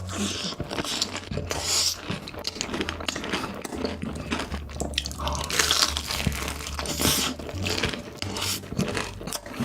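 Close-miked mukbang eating sounds: a dense run of wet chewing, crunching and smacking.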